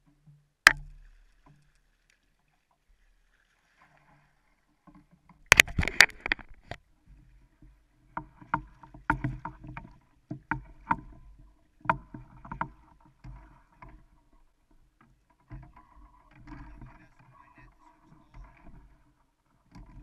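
A king salmon being scooped into a landing net and thrashing in it at the side of a kayak: a sharp knock about a second in, a loud splash around six seconds in, then irregular splashing and knocks of the net frame and handle against the kayak hull.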